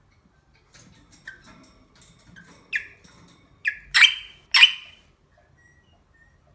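A small animal calling: a run of short squeaks that builds to two loud, harsh squawks about four seconds in, then stops.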